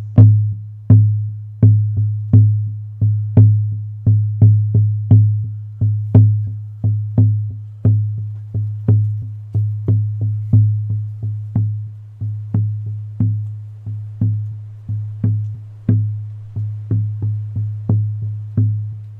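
Hair-on horse-skin frame drum on an ash frame, struck with a firm beater in a steady beat of about two to three strokes a second that quickens slightly near the end. Each stroke is a sharp hit with a deep, booming tone.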